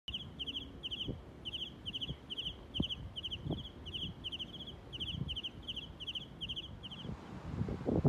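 Cricket chirping steadily, about two short high chirps a second, each a quick run of two or three pulses, stopping about seven seconds in. Low thumps of wind on the microphone sound underneath.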